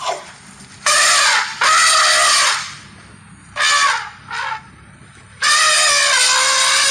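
Woolly mammoth sound effect: a series of trumpeting calls. There are two calls about a second in, two short ones near the middle, and a long call that starts near the end.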